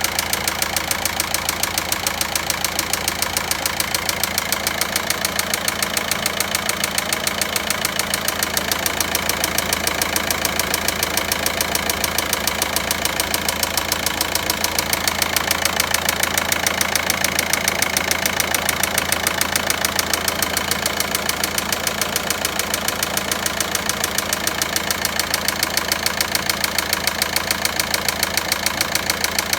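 Volkswagen Passat 1.9 diesel engine idling with a steady, rapid, regular ticking knock: the unexplained engine noise whose source is being sought.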